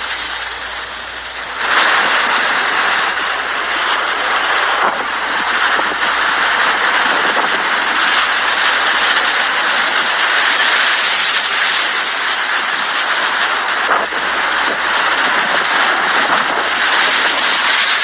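Strong blizzard wind: a loud, steady rush of noise that grows louder about two seconds in.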